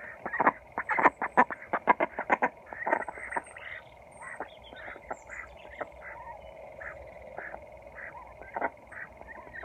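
Indian Runner and Khaki Campbell ducks feeding close by: a quick run of loud clicks and taps in the first couple of seconds, then soft quacks repeating two or three times a second.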